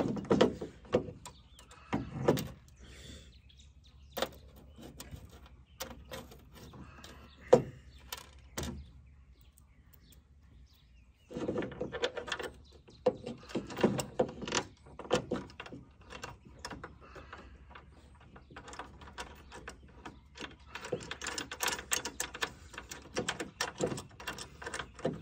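Clicks, knocks and scraping of a small LED light's mounting bracket and hardware being handled and fitted against an aluminum jon boat's gunwale, with two busier spells of rattling clicks, one about halfway through and one near the end.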